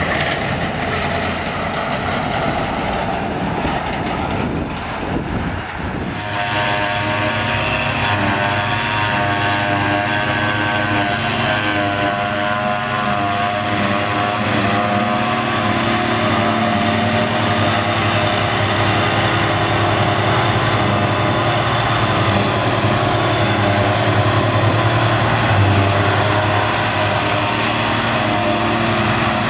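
For the first few seconds a tractor pulling a silage trailer runs past. Then a John Deere 7400 self-propelled forage harvester works under load, its engine and chopper running steadily as it picks up grass and blows it into a trailer, with the engine of the blue Valtra tractor drawing the trailer alongside.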